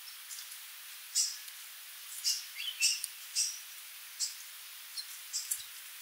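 Sooty babbler giving a series of short, high, sharp call notes at irregular intervals, about ten in six seconds, with a couple of lower falling notes mixed in about halfway through.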